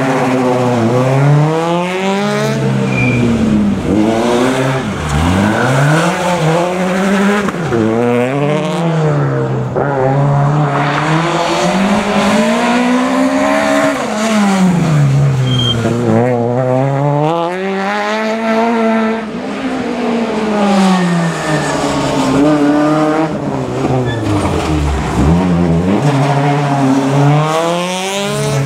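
Rally car engines revving hard, the pitch climbing and then dropping again and again as the cars accelerate, brake and change gear through the stage.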